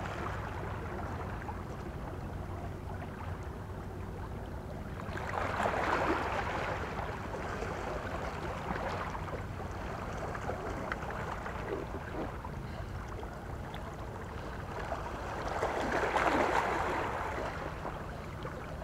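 Small sea waves washing against the shore edge, swelling up twice, about five seconds in and again near the end, over a steady low hum.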